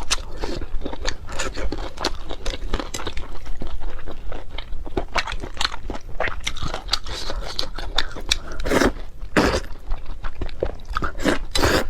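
Close-miked eating: dense, irregular crunching and chewing of food, with a few louder bites or slurps near the end.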